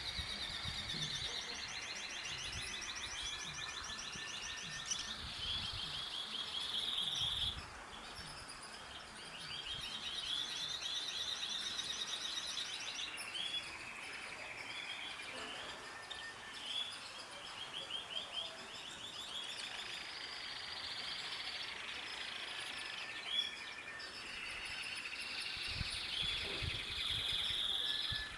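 A chorus of birds chirping and trilling, several birds' fast repeated notes overlapping without a break.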